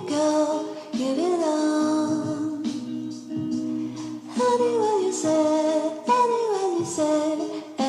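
Background music: a song with a female voice singing a melody over an instrumental accompaniment.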